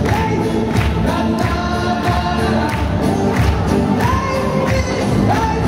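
The show's soundtrack: music with singing voices and a steady beat.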